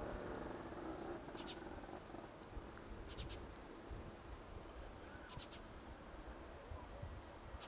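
Stonechat calling: short dry clicking calls of a few quick clicks each, repeated about every two seconds, with faint thin high notes between them.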